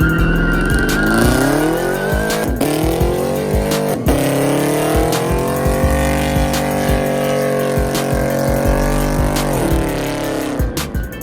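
Car engine revving hard: it climbs about a second in, dips twice, is held at high revs for several seconds, then drops near the end. A steady high squeal sounds over it during the first couple of seconds.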